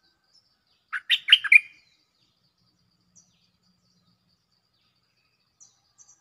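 Stripe-throated bulbul singing one short phrase of about four quick notes, about a second in, then faint high chirps near the end.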